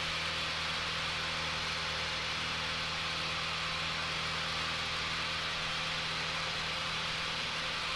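Cabin drone of a Cessna 182P Skylane's 270-horsepower engine and propeller in steady cruise flight: a constant low hum under an even rushing hiss, with no change in pitch.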